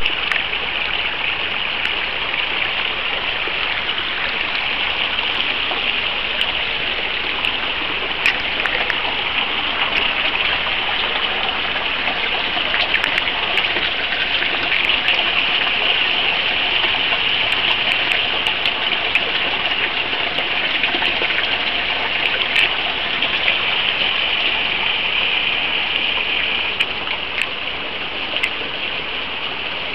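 Glacial meltwater stream running over stones and gravel at the glacier's edge: a steady rushing hiss, with scattered faint clicks.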